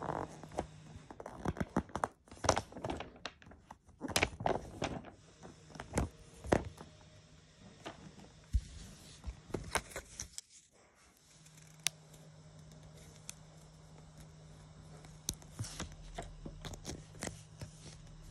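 Paper football stickers and album pages handled close to the microphone: irregular crinkles, taps and scrapes, busiest in the first half and again near the end. A low steady hum sits underneath, dropping out briefly in the middle.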